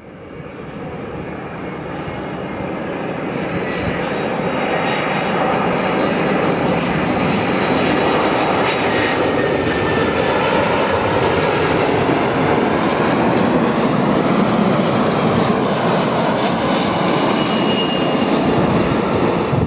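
Four-engine Airbus A340 jet airliner on landing approach: the engine rush swells quickly over the first few seconds as it draws near, then holds loud and steady, with a faint high whine slowly falling in pitch.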